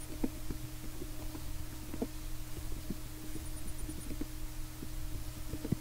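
Computer keyboard typing: faint, irregular soft key clicks several times a second over a steady low electrical hum.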